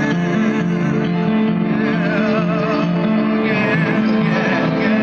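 Live song performance: sustained chords with guitar and a wavering, vibrato-laden melody line above them, between sung lines.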